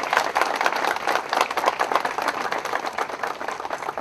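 Crowd applauding: dense hand-clapping that slowly thins out toward the end.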